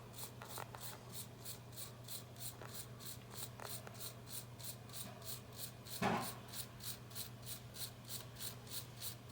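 Rapid back-and-forth scrubbing strokes, about four a second, as a washer door lock's metal terminal is rubbed clean and shiny, over a steady low hum. One brief louder noise about six seconds in.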